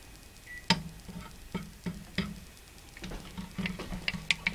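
A spoon clinking and tapping irregularly against a cup while the baking-soda and vinegar mixture is stirred, the clinks coming faster near the end.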